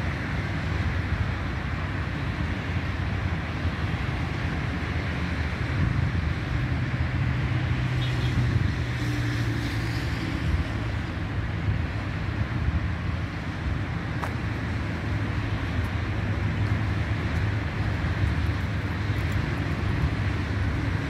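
Steady outdoor ambience: a low rumble and faint hum of distant city traffic under a light hiss.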